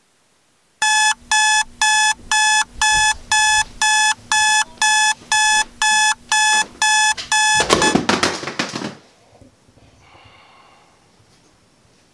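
Capello digital alarm clock beeping, about two beeps a second, for roughly seven seconds until it is cut off. A loud rustle of bedding follows as the sleeper reaches out from under the comforter.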